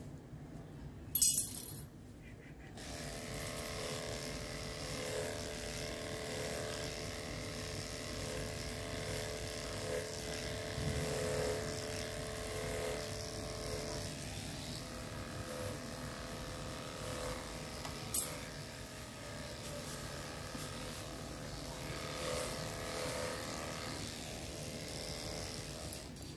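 Corded electric pet grooming clipper running with a steady buzzing hum, switched on a couple of seconds in and off just before the end. A sharp click comes about a second in, before the hum starts.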